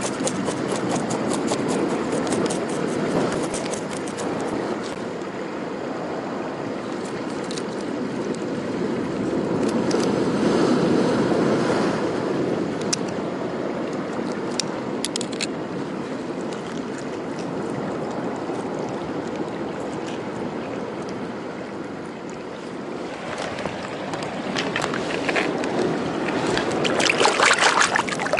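Seawater washing over shore rocks the whole time. For the first few seconds a knife scrapes scales off a mejina (largescale blackfish) in rapid scratchy clicks, and a few sharp snips come in the middle as scissors cut the fish open. Splashing near the end as the gutted fish is rinsed in the sea.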